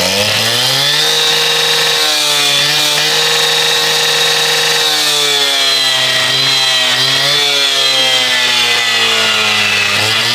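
Husqvarna K770 two-stroke power cutter running at high revs. Its pitch rises in the first second, holds steady for a few seconds, then sags slightly and wavers.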